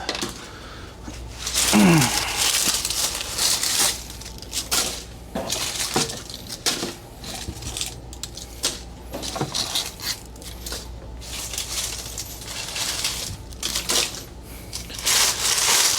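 Dry leaves, including large avocado leaves, being gathered and crushed by hand, with irregular crackling and rustling bursts and scattered sharp clicks.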